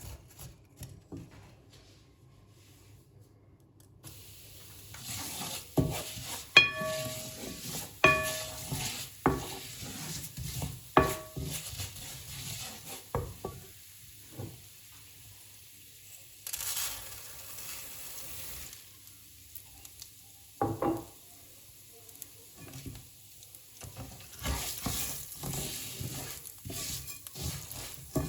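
Food sizzling in a pan while it is stirred, with a metal utensil clinking and ringing against the cookware several times in the first half, between short bursts of hissing.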